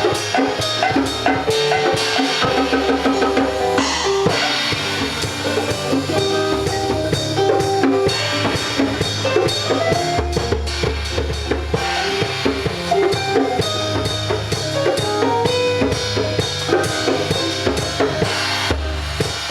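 Instrumental music with a full drum kit playing a steady beat under sustained melodic notes.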